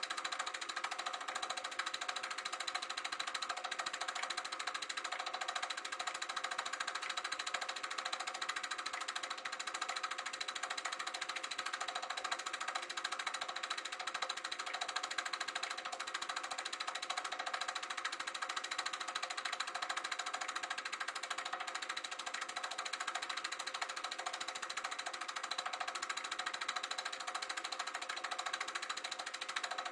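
Sankyo Dualux 1000 8mm movie projector running steadily: the rapid mechanical clatter of the film transport with a motor and fan whir.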